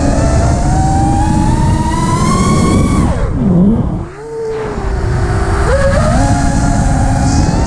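FPV quadcopter's brushless motors and propellers whining, the pitch rising steadily, then swooping down and briefly going quieter as the throttle is chopped about three and a half seconds in, before spooling back up in steps. Heavy wind noise on the onboard camera's microphone.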